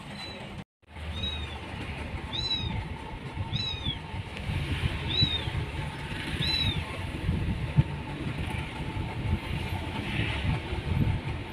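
A kitten mewing: five short, high-pitched mews about a second apart over a steady low rumble, then quieter. One sharp knock about two-thirds of the way through.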